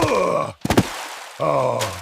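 A cartoon character's voice groaning twice, each groan falling in pitch, with a short thud between them.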